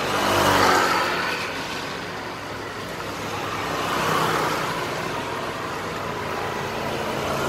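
Road traffic: motor vehicles passing by, the noise swelling and fading, loudest about half a second in and again around four seconds in.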